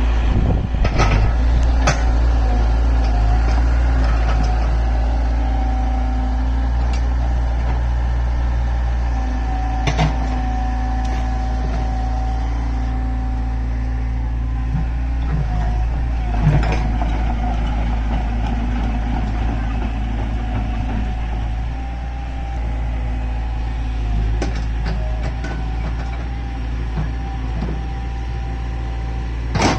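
Excavator engine running steadily, with a few short sharp knocks now and then.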